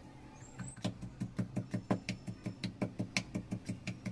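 Pestle pounding ginger and garlic in a small steel mortar, with quick, even knocks about five a second, starting about half a second in.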